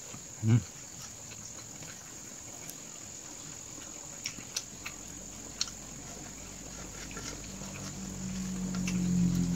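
Eating by hand from a paper plate: a brief voiced 'mm' about half a second in, then a few faint clicks of fingers and chewing over a steady high hiss. A low droning hum swells near the end.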